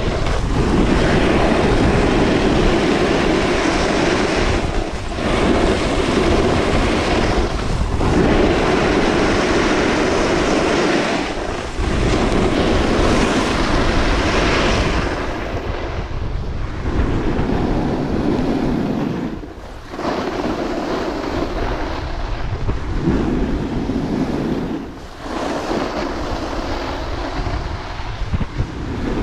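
Snowboard edges scraping over groomed snow through a run of turns, with wind on the microphone. The scrape swells through each turn and dips briefly at every edge change, every few seconds, and sounds duller in the second half.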